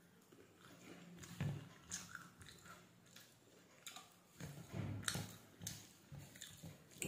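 Close-up chewing of a mouthful of rice and fish curry: irregular wet smacks and soft clicks, louder about a second and a half in and again around five seconds in, along with fingers mixing rice on a steel plate.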